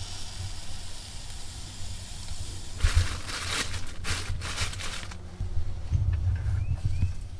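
Crinkling of a thin plastic bread bag as hot dog buns are handled, loudest between about three and four and a half seconds in, over a steady low rumble.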